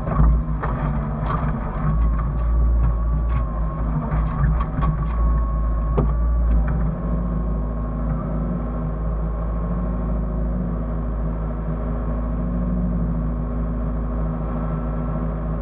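Hyundai excavator's diesel engine running steadily under a low drone. For the first six seconds or so a held whine sounds over it with a series of sharp knocks, as the machine works; after that it settles into an even run.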